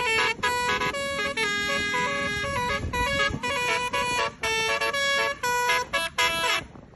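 A bus's basuri multi-tone horn plays a 'telolet' tune of short and held blasts at several pitches, then stops shortly before the end.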